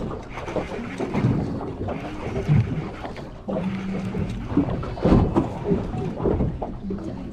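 Wind buffeting the microphone and water moving around a small fishing boat, with irregular knocks and bumps.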